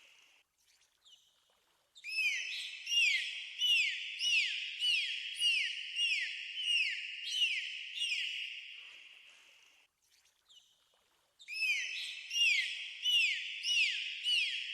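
Dolphins whistling: a run of short, repeated whistles that each slide downward, about two a second, starting about two seconds in and fading away. A second run starts near the end.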